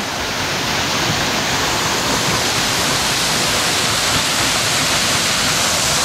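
Waterfall about eight metres high heard from its base: a loud, steady rush of falling water.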